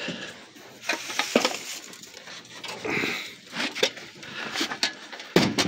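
Footsteps crunching and rustling through dry fallen leaves, with irregular small snaps and cracks.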